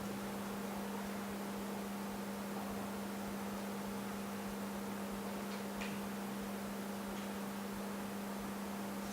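Steady low electrical hum over a constant hiss, with a couple of faint clicks about six and seven seconds in.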